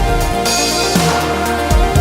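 Electronic dance music with a steady kick drum and held synth chords; the deep bass drops out for about the second half.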